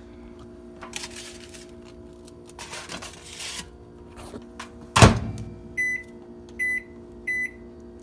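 Microwave oven door shut with a loud thud about five seconds in, followed by three short keypad beeps as its buttons are pressed to set the heating time. Light handling of the paper plate before the door closes.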